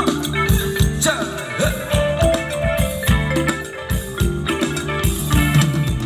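Live band playing Thai ramwong dance music: a steady drum beat under sustained chords and a melody, with no singing in this stretch.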